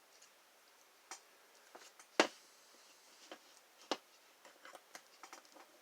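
Small metallic clicks and taps of an American Lock 1305-series padlock being worked apart by hand. There is one sharper click a little after two seconds and a run of light ticks near the end.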